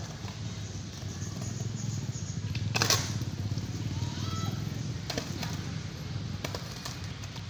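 Skateboards on concrete: a low steady rolling rumble with several sharp clacks of boards hitting the ground, the loudest about three seconds in.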